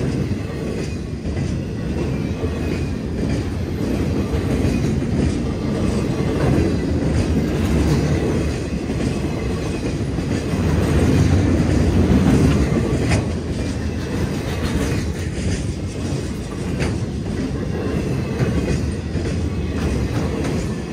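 Empty wind-turbine flatcars of a freight train rolling past at speed: a steady wheel-on-rail rumble with clickety-clack and occasional sharp knocks, and a faint high wheel squeal.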